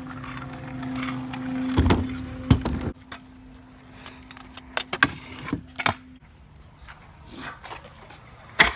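Kick scooter riding on concrete: scattered knocks and clacks from the wheels and deck, then one loud slam near the end as the scooter lands off a ledge. A steady low hum runs under the first six seconds, then stops.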